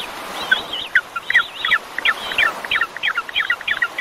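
Bird calling in a rapid series of short chirps that quickens to about five a second, over a steady background hiss.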